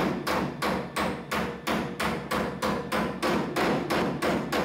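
Rapid, steady hand-hammer blows, about three to four a second, on a freshly tack-welded sheet-metal rust-repair patch in a 1978 Chevy C10 cab's windshield frame, beating the patch down flush with the surrounding metal.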